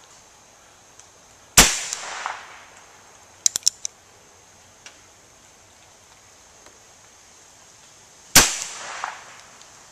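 .22 revolver fired twice, the shots about seven seconds apart, each sharp crack followed by a trailing echo. A quick run of three or four faint sharp clicks comes about two seconds after the first shot.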